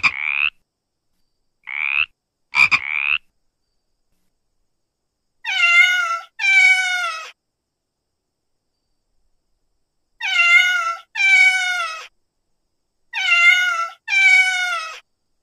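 Water frog croaking three times in the first three seconds. Then a domestic cat meowing six times in three pairs, each meow under a second long and falling slightly in pitch.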